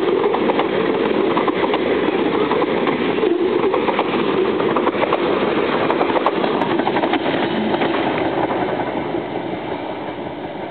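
Freight train of covered hopper cars rolling past close by: a steady rumble of steel wheels on rail with frequent sharp clicks and clanks. It fades over the last couple of seconds as the end of the train goes by.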